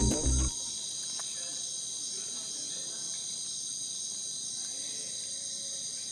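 Steady high-pitched chorus of rainforest insects, several shrill lines held level throughout. The tail of background music cuts off about half a second in.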